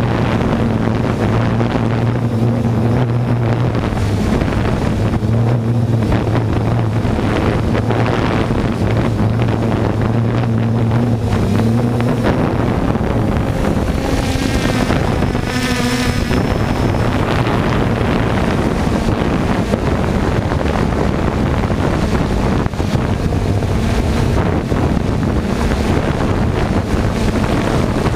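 A drone's electric motors and propellers buzzing steadily as heard from its onboard camera, with wind rushing over the microphone. The motor hum wavers in pitch as it flies, with a brief warbling change about halfway through.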